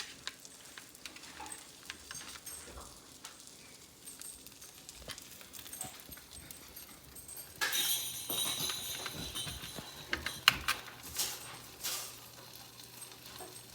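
Knife tapping and scraping against the plate while canned smoked herring fillets are cut into cubes. There are scattered light clicks at first, then a louder stretch of clicking with a hiss from about eight seconds in.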